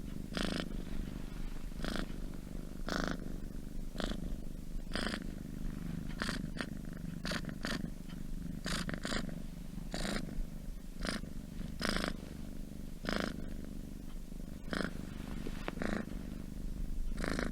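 Domestic cat purring steadily, a continuous low rumble with a breathier surge roughly once a second as it breathes in and out.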